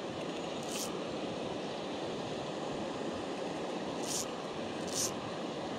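Steady rushing of a river's flowing water, with three short high hissing swishes.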